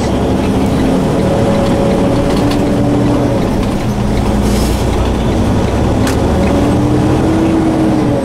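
Steady engine and road noise of a vehicle, with a low engine hum that drifts slowly up and down in pitch and a single click about six seconds in.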